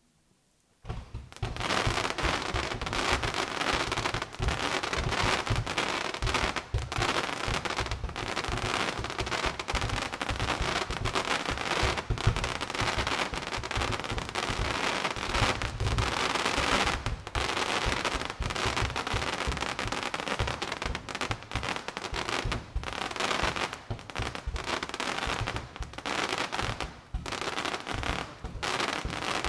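Fireworks set piece and aerial fireworks going off together: a dense, continuous barrage of crackling pops and sharp bangs that starts suddenly about a second in.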